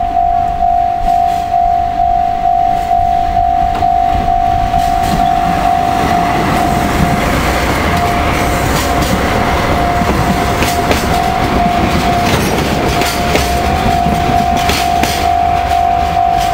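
Japanese level-crossing warning bell ringing at about two strokes a second. A freight train passes over the crossing from about five seconds in, its wheels clacking over the rail joints under the bell.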